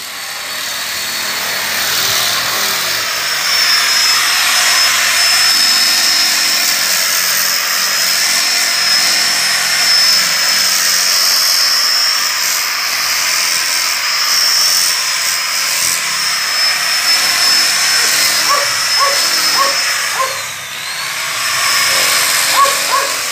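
Electric angle grinder with a sanding disc running steadily, with a high whine, as it sands the wooden side planks of a canoe hull. About twenty seconds in, the whine and loudness briefly dip and then pick up again.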